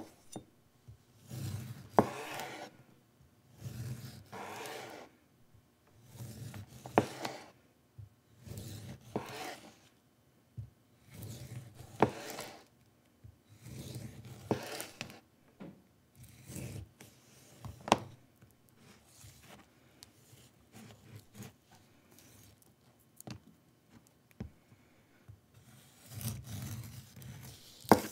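Chef's knife slicing a whole, unpeeled avocado crosswise into rounds: a rasping cut through the pebbly skin about every one to two seconds, several ending in a sharp click as the blade meets the cutting board.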